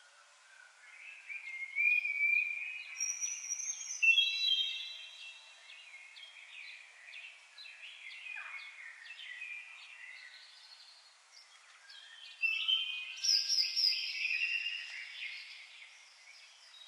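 Several songbirds singing together in short whistled phrases and chirps. The song swells about two seconds in, then again louder from about twelve seconds in.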